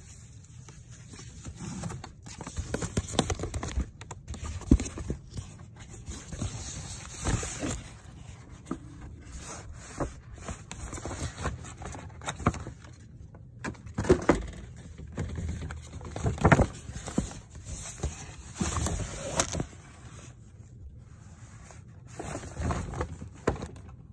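Stiff paper shopping bags and packaging rustling and scraping as they are handled, in irregular bursts with occasional knocks.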